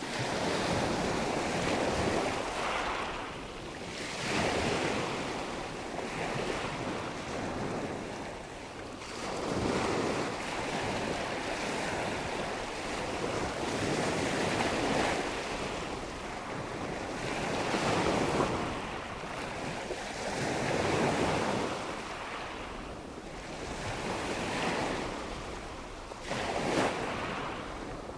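Ocean surf: waves breaking and washing in, the rushing sound swelling and fading again every two to three seconds.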